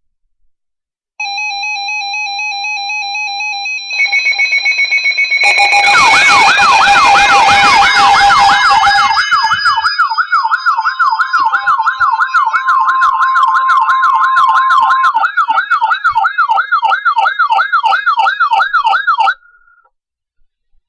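Weather radio alert alarms sounding for an incoming Emergency Alert System warning: electronic warbling tones that sweep up and down several times a second, layered with steady beeping tones and, for a few seconds, a steady tone. The alarm grows louder about 5 seconds in and cuts off abruptly near the end.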